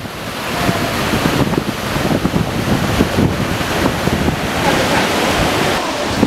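River Dee rapids rushing over rocks: a steady, even noise of white water. Wind buffets the microphone underneath.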